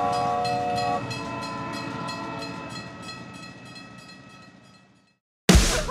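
Steam locomotive sound effect: a whistle sounding a chord of several tones, dropping away about a second in, over a steady chugging of about four beats a second that fades to nothing. Loud rock music starts abruptly near the end.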